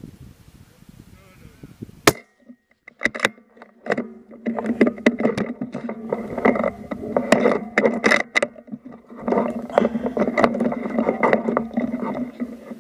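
A single suppressed rifle shot about two seconds in, from an Accuracy International AE MK3 in .260 with a YHM titanium suppressor, sharp and by far the loudest sound. It is followed by muffled voices and scattered clicks and knocks.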